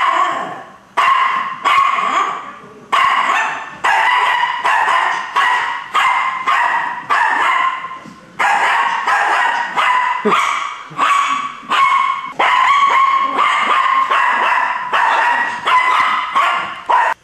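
Small dog barking at animals on the television, a steady string of sharp barks at about two a second that stops abruptly near the end.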